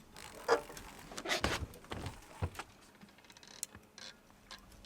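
Scattered knocks and taps at irregular intervals, about six of them, as a snagged line and snag debris are handled aboard a small boat.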